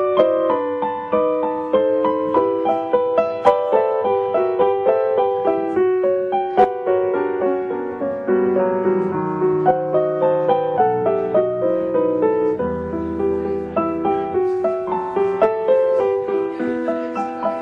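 Background piano music: a steady stream of struck notes.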